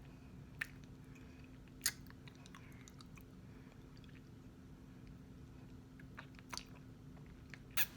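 Close-up mouth sounds of chewing dry cornstarch chunks: a few sharp, separate crunchy clicks, irregularly spaced, the loudest near the start and just before the end, over a faint steady hum.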